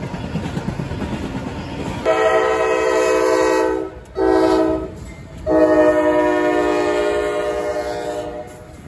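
Freight train rolling past on the rails, then a diesel locomotive's air horn, a multi-note chord, sounding a long blast, a short one and a long one starting about two seconds in: the closing long-short-long of a grade-crossing signal.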